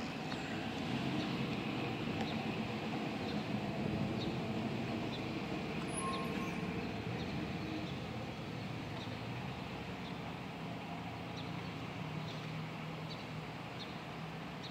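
Street traffic going by, louder for the first few seconds as a vehicle passes, with faint short high chirps every second or so.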